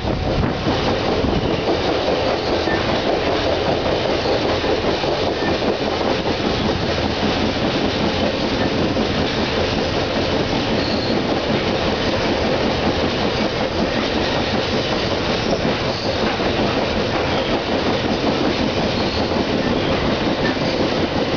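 Alaska Railroad passenger train running along the track, heard from aboard: a steady noise of wheels on rail as the train rounds a curve.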